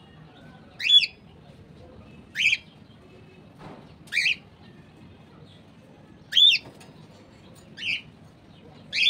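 Cockatiel calling: six short chirped calls, each rising then falling in pitch, spaced a second or two apart.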